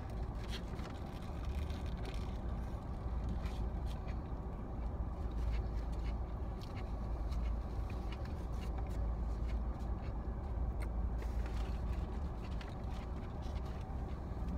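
Steady low rumble of a car, heard from inside the cabin, with scattered faint clicks and rustles over it.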